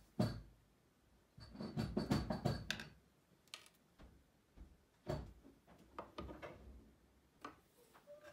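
Side-cutters snipping lead wire and small lead pieces being handled at a grand-piano hammer head on a digital scale: two sharp clicks at the start, a rattling run of light clicks about a second and a half in, then scattered single clicks and taps. Lead is being added to bring the hammer head up to its target weight.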